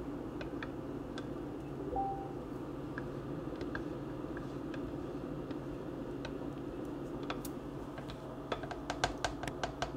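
Spoon stirring a thick sauce in a small Crock-Pot slow cooker, with light scattered clicks of the spoon against the pot and a quick run of clicks near the end.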